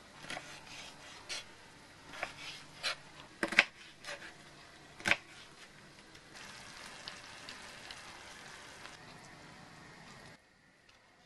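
A knife knocking and tapping on a wooden cutting board several times as fish fillets are cut into pieces, the two loudest knocks about three and a half and five seconds in. From about six seconds, a steady sizzling hiss of cream sauce cooking in a steel pan, which stops abruptly near the end.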